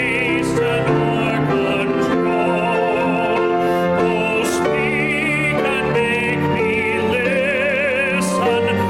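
Singing with a wide vibrato on slow, held notes over instrumental accompaniment.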